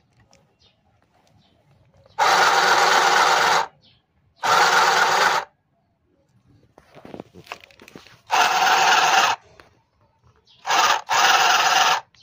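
Electric mini sewing machine running in four short spells of about a second each, stitching thin fabric, with pauses between as the motor is started and stopped.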